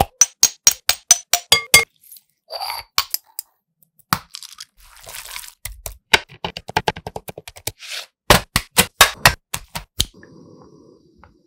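A quick series of sharp, ringing clinks and taps from a glass spice jar and cookware being handled, with scattered rustling and scraping between them. Near the end there are faint sounds of a plastic oil pouch being handled.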